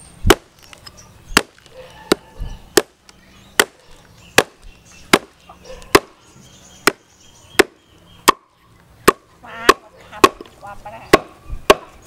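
A hatchet chopping raw beef and bone on a round wooden chopping block: a steady run of sharp chops, about one every three-quarters of a second.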